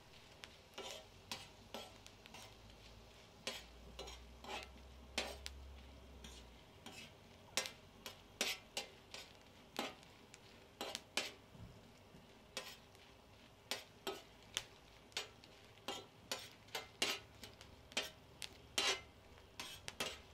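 A small metal spoon clicking and scraping on a hot comal as it turns dried chiles de árbol toasting on it, in short sharp clicks at uneven intervals, roughly two a second.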